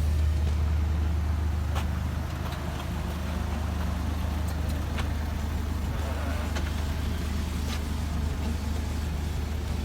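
Suzuki Jimny engine running at low speed off-road: a steady low drone, with a few sharp knocks at about two, five and eight seconds.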